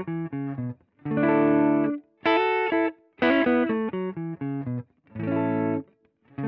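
Godin electric guitar played through an amplifier, picked with a plectrum: a riff of short chord phrases, each about a second long and cut off sharply into silence before the next.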